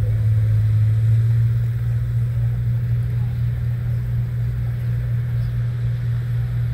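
Wind rumbling on the microphone over a steady low hum.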